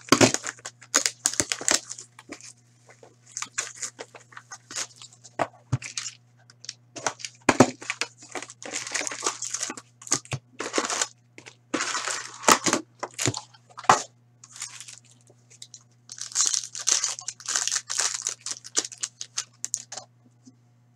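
A cardboard hockey-card box is torn open and its foil card packs are pulled out and ripped open. It is a stream of tearing, crinkling and rustling with sharp irregular clicks, busiest for a few seconds near the end and then dropping away.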